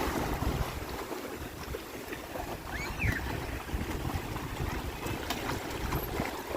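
Wind buffeting the microphone: a gusty, uneven low rumble, with a faint short chirp about three seconds in.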